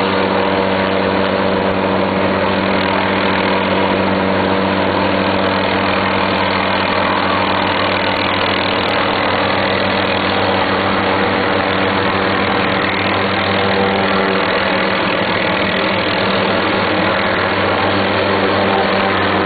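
Helicopter running steadily, its engine and rotor making a constant drone with a low, even hum.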